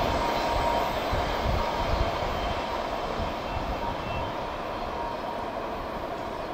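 CSX freight train rolling past on the rails, a steady rolling noise that slowly fades as the cars go by.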